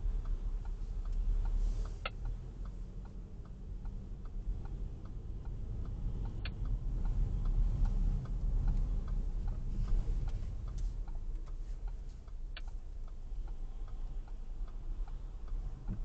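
A car's turn-signal indicator ticking steadily, about two to three clicks a second, over the low rumble of the engine and road inside the cabin. Three sharper clicks stand out, about two, six and a half and twelve and a half seconds in.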